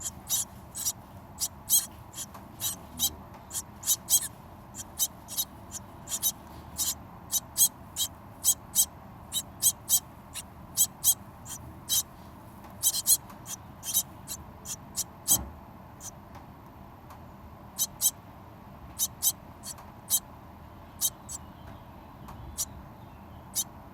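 Hungry birds giving short, high-pitched squeaky begging calls, in quick irregular series of about two or three a second, growing sparser after about two-thirds of the way through.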